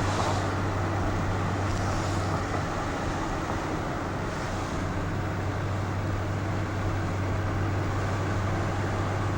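Steady road and engine noise of a car being driven, with a constant low hum underneath and a few brief hissy swells.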